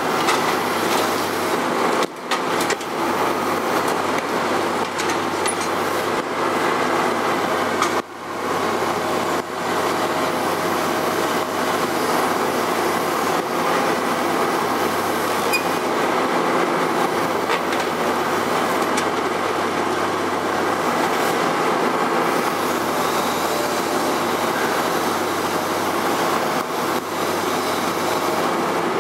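Liebherr R 954 B crawler excavator running under load, its diesel engine and hydraulics working steadily as its demolition grab tears at a building's roof frame. There are several sharp clanks and crunches of breaking structure, mostly in the first ten seconds.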